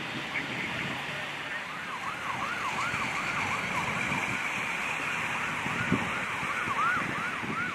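Emergency vehicle siren in a rapid yelp, quick rising-and-falling sweeps at about three a second, starting about two seconds in, over steady traffic and wind noise. A single knock about six seconds in.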